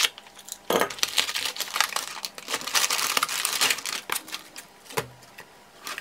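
Scissors cutting open a padded mailer, with dense crinkling and rustling of the packaging, then a few scattered clicks of the contents being handled near the end.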